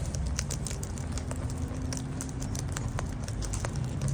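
Cockatoos feeding on scattered seed: many irregular small clicks and taps of beaks pecking and cracking seed, over a low steady rumble.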